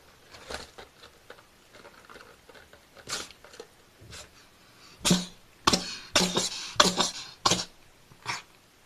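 A domestic cat sneezing over and over: a few fainter sneezes, then a fit of about five sharp sneezes in quick succession starting about five seconds in.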